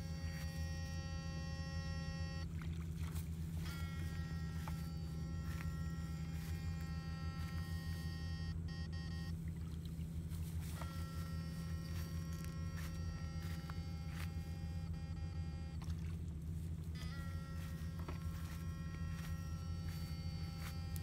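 Backpack electrofishing shocker with a steady low electrical hum. Over the hum a high, many-toned whine cuts off and comes back on every few seconds as the shocking current is switched on and off.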